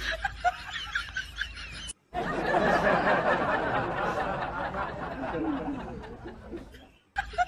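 People laughing and snickering. About two seconds in the sound cuts out briefly, then comes back as a dense, noisy stretch of laughter that fades away before a second short cut near the end.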